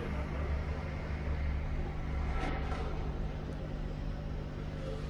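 Steady low mechanical hum, like a motor or machine running, holding the same pitch and level throughout.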